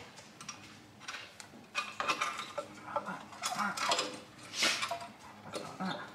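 Metal clinking and scraping as the exhaust manifold and its washers and nuts are handled on the studs of a VW T5 1.9 TDI's cylinder head. Irregular light clinks, the loudest a little past four and a half seconds in.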